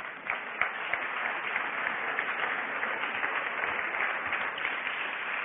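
Audience applauding: a dense patter of many hands clapping, swelling within the first second and holding steady.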